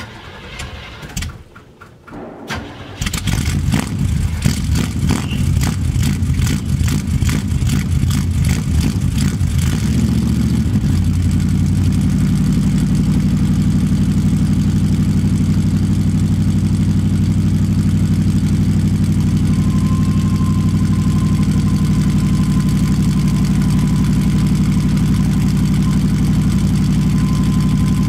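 1978 GMC Suburban engine cranking briefly and catching about three seconds in, on a 12-degree cold start without choke. It runs fast and pulsing for several seconds, then settles into a steady idle about eleven seconds in.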